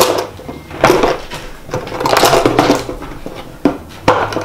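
Small hard-plastic bin made to hang on a cabinet door, handled and knocked about: a string of irregular clunks and scrapes.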